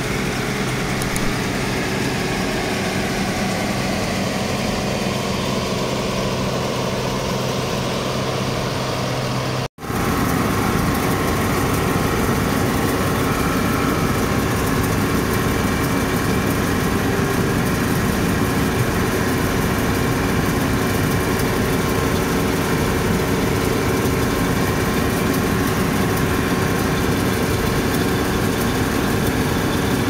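Old combine harvester running steadily, its engine and threshing machinery working while it harvests wheat. The sound cuts out for an instant about a third of the way in, then comes back louder and noisier.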